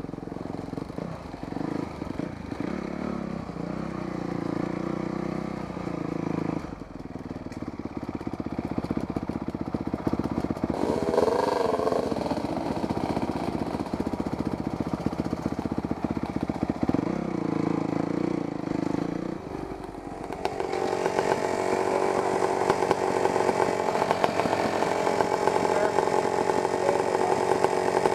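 Dirt bike engines: a bike ridden slowly over a rough forest trail, its engine note rising and falling with the throttle, with one brief rev about eleven seconds in. From about twenty seconds in, a steadier, higher engine note, with the bikes stopped together and running.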